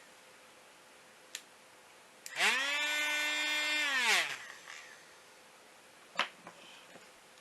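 Small electric motor of a homemade drilling machine switched on once: it spins up quickly, runs with a steady high whine for about a second and a half, then winds down. Sharp clicks come a moment before it starts and again a couple of seconds after it stops.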